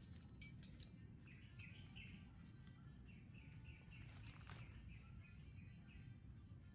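A bird calling faintly in a run of short, repeated chirps, about three a second, in two bouts, over a steady low background rumble.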